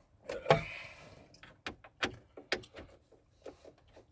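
Sharp clicks and knocks of hand tools on the plastic glove box and latch of a 1998 Dodge Dakota as the latch is screwed on, with one louder knock about half a second in followed by several lighter clicks.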